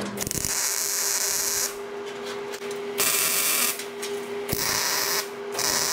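MIG welder tack-welding steel flat-stock tabs: four bursts of sizzling crackle, the first over a second long and the rest shorter, with a steady hum beneath.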